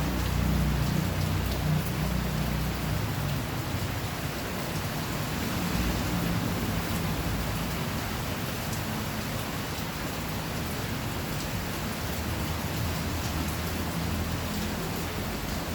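Steady rain falling, with a low rumble in the first few seconds and again around six seconds in.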